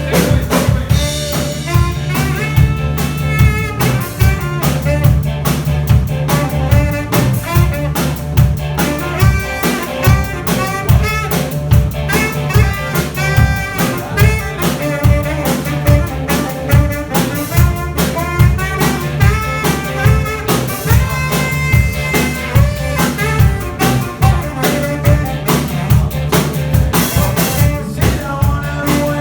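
A live band playing: a drum kit beat over a steady bass line, with melodic lines on top.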